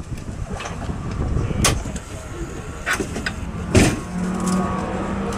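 A few sharp clicks and knocks inside a race car's cabin as the driver fastens his harness, over a low rumble. A steady hum sets in about four seconds in, with the loudest knock.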